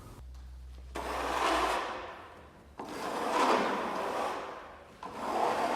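Heavy sawn oak boards being slid and scraped against each other, wood rubbing on wood in three drawn-out strokes.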